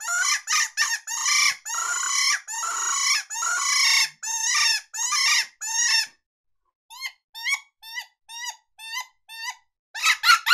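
Dog Soldier Legend 4HB hand predator call blown as a high-pitched bird distress sound: a fast run of loud, raspy squeals, then after a short pause a string of short, thinner chirps at about three a second, then louder squeals again near the end.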